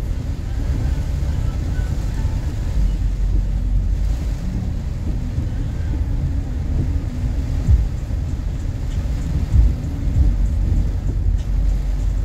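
Vehicle moving over rough ground, heard as a steady low rumble, with two heavier jolts about eight and ten seconds in.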